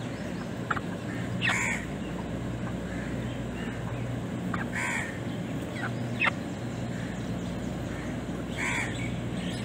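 Three short bird calls, about three and a half seconds apart, with a couple of sharp clicks, over a steady low hum.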